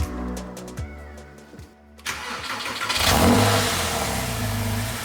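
Porsche 911 (997) flat-six engine starting about two to three seconds in, flaring up briefly, then settling into a steady idle.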